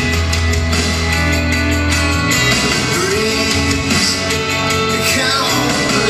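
Recorded pop-rock song playing: a singing voice over guitar and a low bass line.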